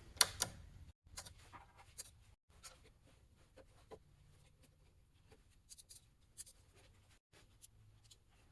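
Faint, scattered clicks and taps of small parts and screws being handled as the chop saw's switch housing is opened up, a couple of sharper clicks at the start, then irregular light ticks.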